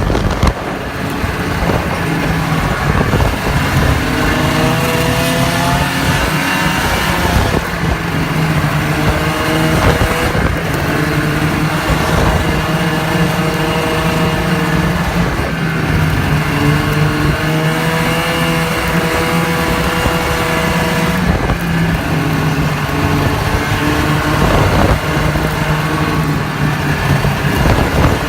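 Snowmobile engine running under way, its pitch rising and falling every few seconds as the throttle and speed change.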